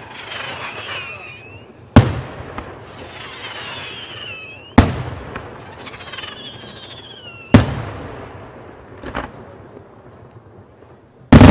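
Aerial fireworks shells bursting with four loud, sharp bangs about every three seconds, and a softer pop in between. Each of the first bangs is followed by a wavering high whistle that glides up and down.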